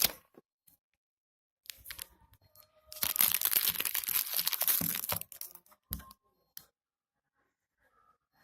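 Packaging being handled while unwrapping a phone: crinkling plastic and paper, loudest in a dense stretch of about two seconds beginning about three seconds in, with a few sharp clicks.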